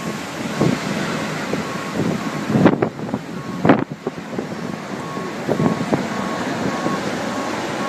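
Strong wind buffeting the microphone in gusts, with two loud thumps about a second apart near the middle. A vehicle's reversing beeper sounds faintly and steadily, about two beeps a second.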